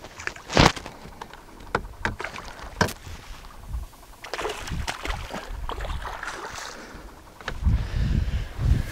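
A hooked smallmouth bass thrashing and splashing at the surface beside the boat, with one sharp splash about half a second in. It is then scooped in a landing net amid a spell of sloshing water. Low knocks near the end come as the net is lifted against the boat.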